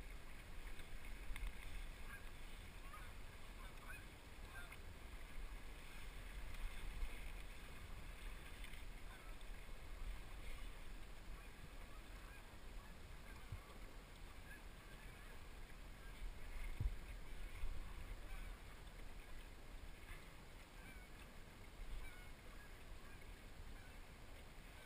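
Geese honking faintly on and off, with a steady low wind rumble on the microphone.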